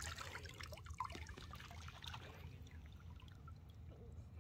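Faint trickling and light splashing of shallow seawater around a wading child's legs.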